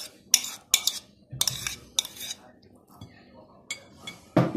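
Metal spoon clinking and scraping against a glass bowl in irregular sharp knocks while crumbled cheese is stirred and pressed.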